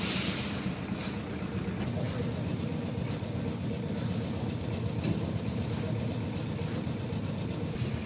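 Engine of heavy construction machinery running steadily at a low, even rumble, with a short hiss at the very start.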